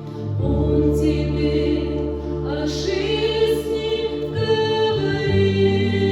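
Choral singing: sustained, slowly changing chords with voices over a low held accompaniment.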